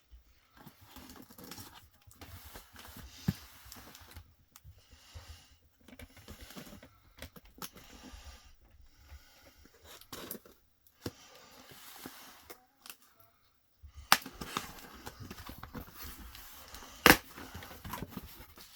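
A shipping package being opened by hand: tape and paper tearing, cardboard and packing rustling, with a few sharp clicks and knocks, the loudest near the end.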